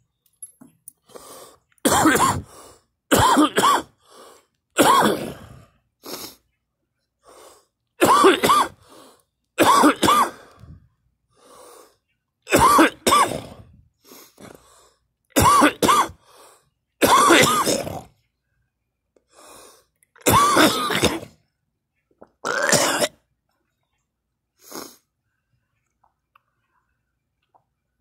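A person in a long coughing fit: about a dozen harsh, forceful coughs, many of them in quick pairs a second or two apart, with short quieter breaths between. The fit dies away near the end.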